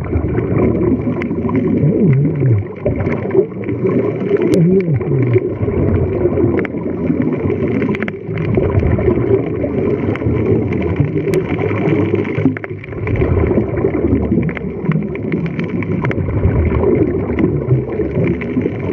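Scuba regulator exhaust bubbling and gurgling, heard muffled underwater with a steady low rumble.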